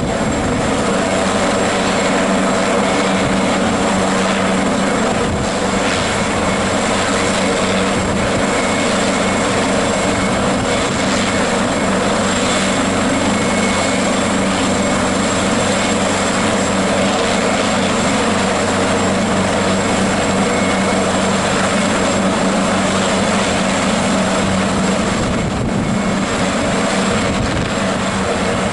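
AgustaWestland AW139 helicopter running on the ground with its twin turboshaft engines and rotors turning: a steady, unchanging rotor and engine noise with a thin high turbine whine over it.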